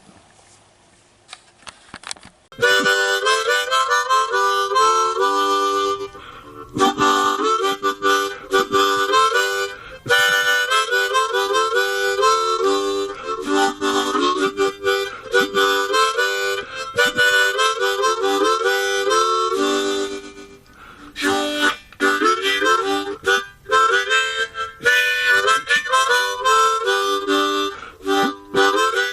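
Harmonica music, a melody of held and repeated notes that starts about two and a half seconds in, with brief pauses between phrases.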